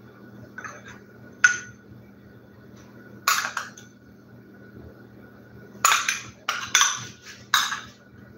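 A metal spoon clinking and scraping against a ceramic bowl as cinnamon sugar is scraped out, giving separate sharp clinks with a quick run of them near the end.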